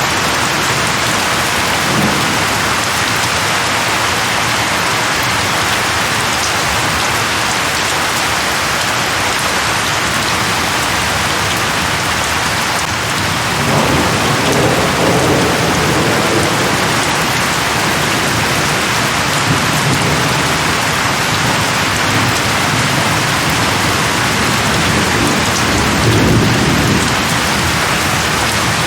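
Steady heavy rain falling on leaves, with low thunder rumbling about halfway through and again near the end.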